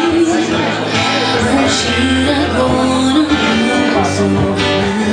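Live acoustic band playing a slow pop ballad: two strummed acoustic guitars backing a woman singing held, sliding notes.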